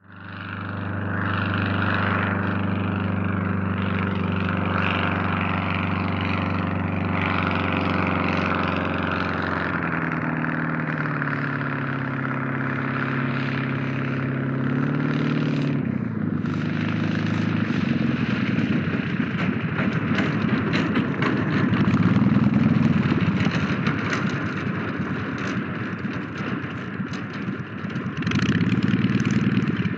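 Santos-Dumont Demoiselle single-propeller monoplane's engine during a landing: a steady engine note that drops in pitch about ten seconds in, shifts again around the middle, then runs rougher and more uneven, swelling louder a little past halfway and again near the end.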